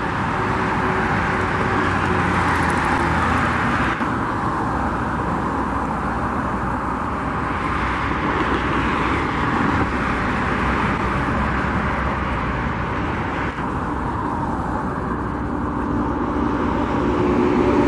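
Steady road traffic noise, with a vehicle's engine hum growing louder near the end.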